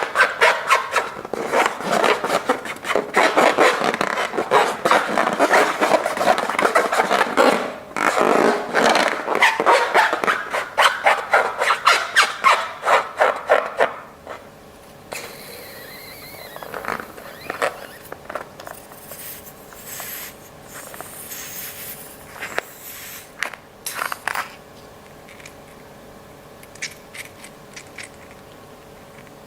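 Slime with slushie beads being squished and worked by hand: a dense, loud run of rapid crackling, squelching clicks for about fourteen seconds, then only scattered quieter clicks.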